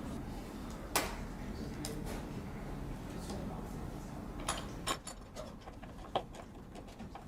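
Flat-pack shelf being assembled by hand: scattered clicks and knocks as parts and fittings are set in place and screwed together, with a sharp knock about a second in and a cluster of clicks around five seconds in.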